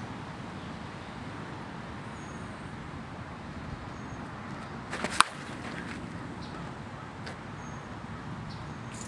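One sharp crack of a Dudley Lightning end-loaded senior softball bat striking a pitched slowpitch softball, about five seconds in, over steady outdoor background noise.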